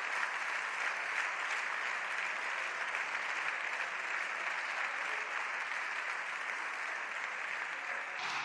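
Applause from many deputies in their benches, clapping steadily.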